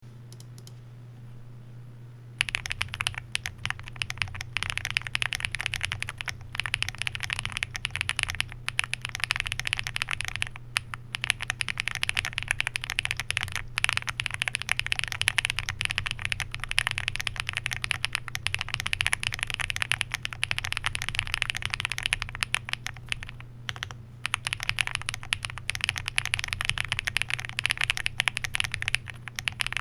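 Typing on a Weikav Record Alice mechanical keyboard with lubed and filmed Gateron SolDark linear switches, a PC plate, full foam dampening and GMK keycaps. The keystrokes come in a fast, steady stream that starts about two seconds in, with a few brief pauses.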